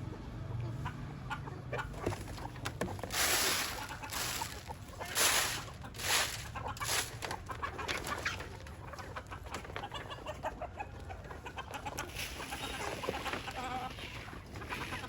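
Chickens clucking. Several short, louder bursts of rustling noise come between about three and seven seconds in.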